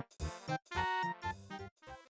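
Background music: a bouncy tune played in short, choppy note clusters separated by brief gaps.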